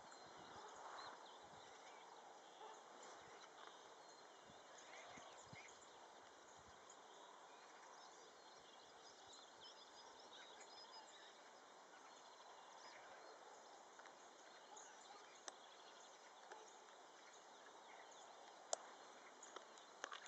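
Near silence: faint outdoor ambience with scattered faint high chirps, and a few sharp clicks near the end.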